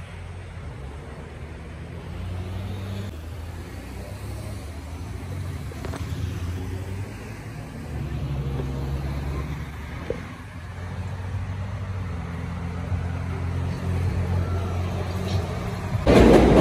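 Low engine drone of a city bus and street traffic, slowly growing louder as the bus approaches. Near the end it cuts suddenly to a much louder rumble of an elevated train.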